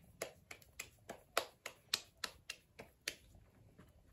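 Bare hands patting a ball of corn masa flat into a bocol: a quick run of sharp slaps, about three to four a second, growing faint about three seconds in.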